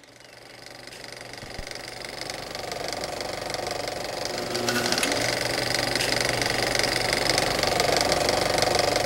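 A machine running with a fast, even clatter and a steady hum under it, fading in over the first few seconds and then holding steady.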